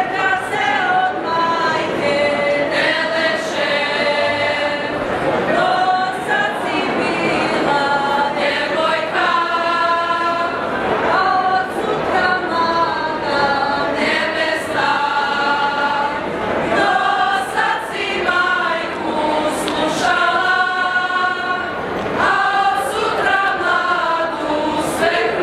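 A group of women singing a Serbian folk song from Kosovo in unison without accompaniment, in held phrases.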